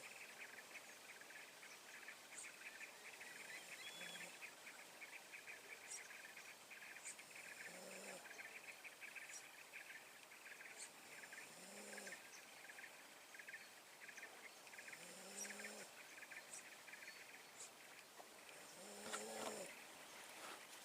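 Faint forest ambience: a steady insect trill, short high bird chirps, and a low hooting animal call repeated five times about four seconds apart, the last the strongest. The low call is the unexplained strange sound caught while luring hanging parrots.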